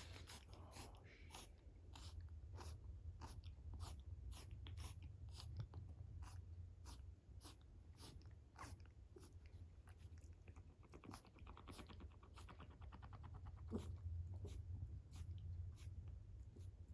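A rabbit chewing: a steady run of small crisp crunches, about three a second, over a low room hum.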